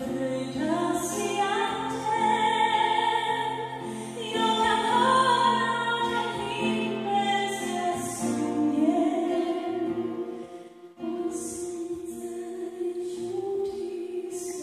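A woman's solo voice singing a slow hymn in long held notes with vibrato, accompanied by acoustic guitar.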